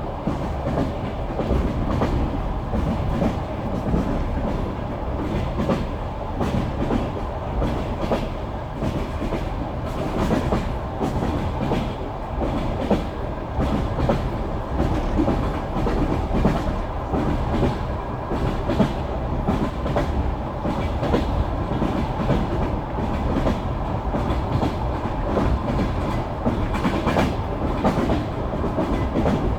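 Wheels of an express passenger train clacking over rail joints, over a steady running rumble, heard from inside the carriage.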